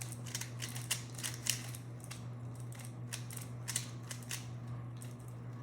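3x3 Rubik's cubes being turned fast: a quick, irregular run of plastic clicks as the layers snap round.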